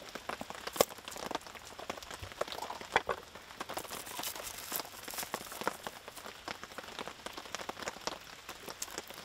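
Rain pattering on a surface, a dense, irregular run of small drop ticks over a steady hiss, with a few sharper clicks, the loudest about a second in and another at three seconds.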